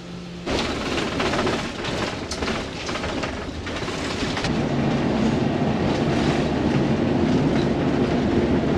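A vehicle pulling away and driving over rough ground. Loose parts rattle and clatter, and the low drone of driving grows steadily louder about halfway through.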